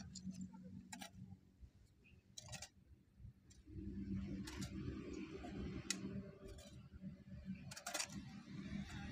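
Metal hoe blade chopping and scraping into a heap of soil and manure, faint crunching with scattered clicks of grit and pebbles about once a second or so. A faint steady low hum sits underneath, dropping out briefly and returning about four seconds in.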